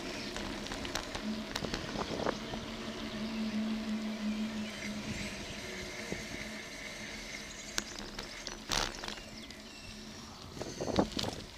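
Bicycle rolling over tarmac: a steady rolling noise with scattered rattles and knocks, and a cluster of sharper knocks near the end. A low steady hum runs for a few seconds in the first half.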